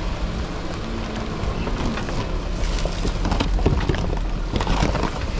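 Vehicle engine running under wind buffeting the microphone, with a flurry of knocks and rattles in the middle.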